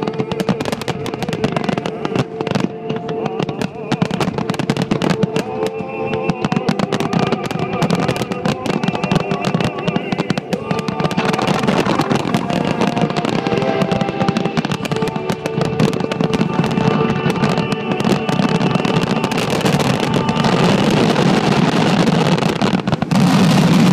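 Fireworks display: a dense, rapid barrage of aerial shell bangs and crackle, growing louder toward the end, with music playing alongside.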